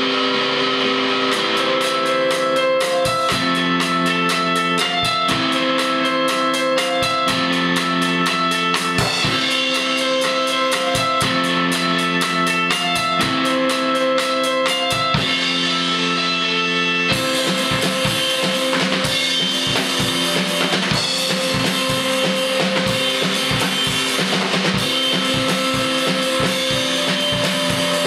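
Guitar and drum kit playing together in a jam: the guitar holds chords that change every second or two over a busy, steady drum beat. About two-thirds of the way through, the drumming gets denser, with more cymbal.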